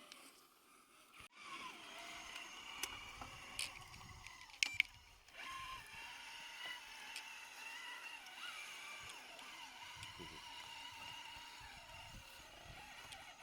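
Electric drive motor and gears of a 1/7-scale Rlaarlo JK07PRO RC trail truck whining as it crawls, starting about a second in with the pitch wavering under the throttle. Two sharp clicks come near the middle, just before a brief pause.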